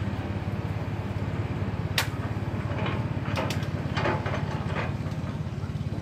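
Hitachi amphibious pontoon excavator's diesel engine running steadily, with a sharp knock about two seconds in and a few more knocks in the middle.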